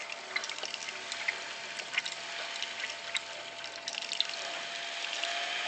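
Coolant churning and splashing inside a PC water-cooling loop's tube reservoir as the pump drives a fountain jet up through it, with many small bubbly pops and ticks as air is bled out of the loop. A thin steady tone from the running pump sits underneath.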